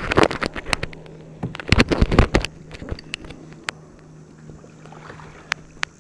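Water slapping and knocking against a fishing kayak's hull, in two busy clusters in the first half, then a few single clicks, over a low steady hum.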